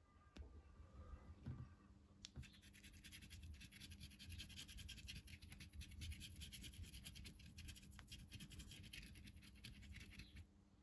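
A coin scratching the foil coating off a scratch-off poster map in quick, faint back-and-forth strokes. It starts about two seconds in and stops just before the end.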